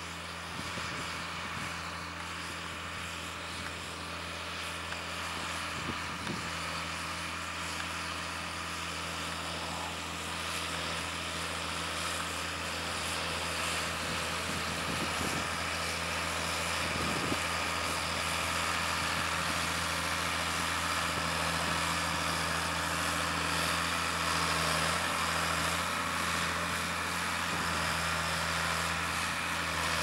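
John Deere 4960 tractor's six-cylinder turbo diesel running steadily under load as it pulls an eight-furrow mouldboard plough through the ground, growing gradually louder.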